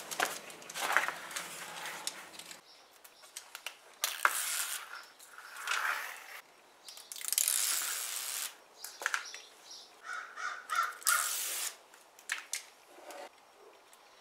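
Red release liner being peeled off the double-sided adhesive tape on a plastic rocker panel cover, in several short pulls, with rustling as the piece is handled.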